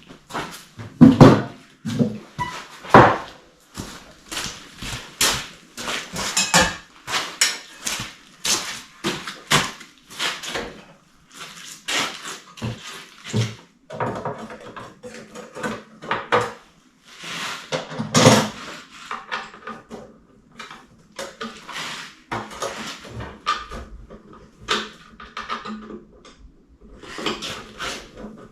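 Irregular metallic clanks, knocks and rattles of a snowblower and tools being handled and fitted, with the loudest knocks about a second in, around three seconds in and again at about eighteen seconds.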